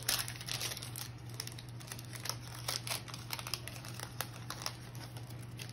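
A foil trading-card pack crinkling as it is torn open by hand, then the cards inside sliding and clicking against each other as they are pulled out, with many light irregular ticks.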